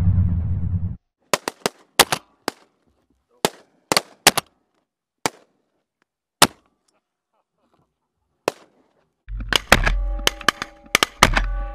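A string of shotgun blasts from several hunters firing at ducks overhead: about a dozen separate shots, some in quick pairs, over roughly eight seconds. Music fades out about a second in and comes back near the end, with more shots over it.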